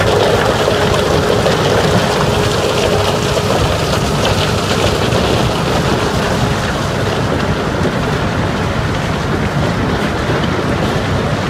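Coarse ore rock tumbling through a wear-lined steel transfer chute and riding a loaded conveyor belt: a steady, loud rumble and clatter of rock. A steady hum fades out about three and a half seconds in.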